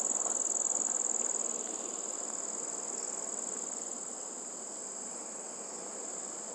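Wooden spatula stirring thick wheat halwa mixture in a steel pan over a low flame, giving a soft, wet scraping that is a little louder in the first second or so. A steady high-pitched cricket trill runs throughout.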